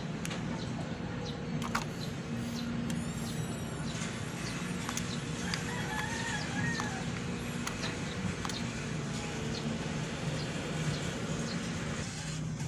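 Bird calls, one short and high about three seconds in and a longer wavering one around the middle, over a steady low hum with scattered light clicks.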